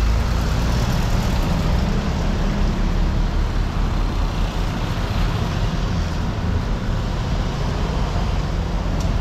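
A motor vehicle's engine running close by, with steady road and traffic noise.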